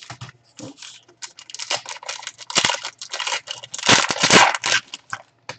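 Wrapper of a 2017-18 Panini Status basketball card pack being torn open and crinkled by hand: a run of crackling rustles and clicks, densest about four seconds in.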